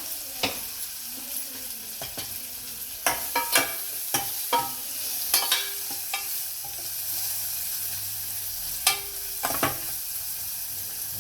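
Chopped onions and green chillies sizzling in oil in a pot, softening with salt and turmeric, with a spoon stirring and knocking against the pot now and then.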